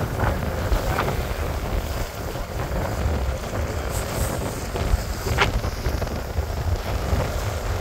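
Wind buffeting the microphone over the steady rumble of a sportfishing boat's engines and the churning wash at its stern.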